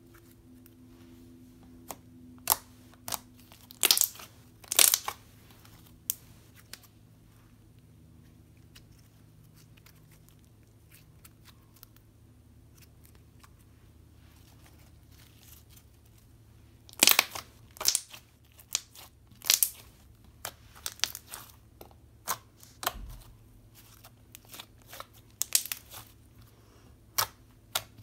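Thick slime being squished and poked, giving off sharp irregular clicks and pops in bunches, with a quiet stretch in the middle.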